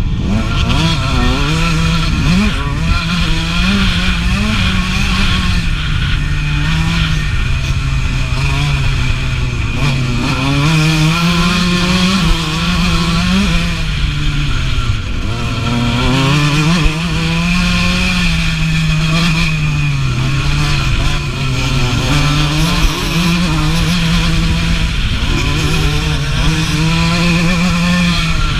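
1989 Suzuki RM125's two-stroke single-cylinder engine at racing revs, its pitch repeatedly rising under hard acceleration and dropping as it shifts or backs off, every few seconds.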